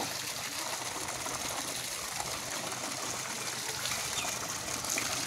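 Water gushing steadily out of a village hand pump's spout and splashing onto the wet ground, with nobody working the handle. The pump is overflowing on its own because heavy rain has raised the groundwater.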